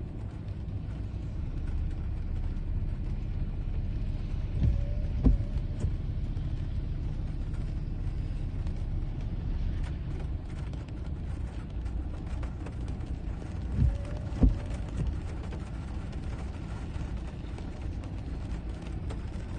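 Steady low rumble of storm wind and heavy rain, heard from inside a car. A pair of dull thumps comes twice, about five seconds in and again about fourteen seconds in.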